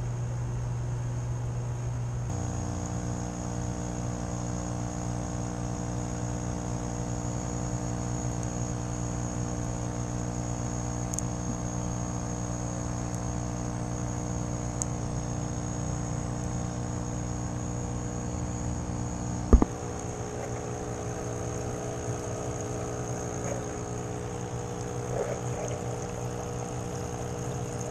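Electric air pump humming steadily as it feeds air stones in hydroponic buckets, with one sharp knock about two-thirds of the way through.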